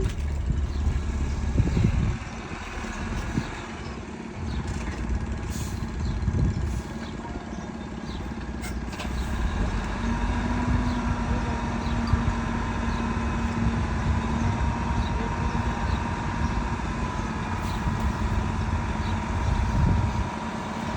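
Heavy diesel construction machinery (a dump truck and bulldozer at work) running continuously with a low rumble that swells and eases. A steady whine joins about halfway through.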